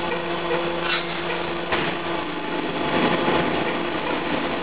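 Pet food extruder running while it extrudes product: its electric motor and belt-driven rotary cutter at the die give a steady mechanical running noise over a constant hum, with a brief clatter about a second and a half in.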